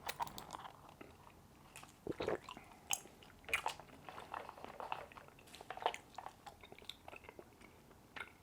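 A person chewing food close to the microphone, with irregular mouth clicks and smacks.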